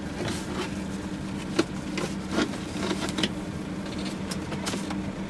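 Boeing 737 flight deck escape rope being pulled out of its overhead compartment by hand: a handful of short rustles and knocks over a steady low hum.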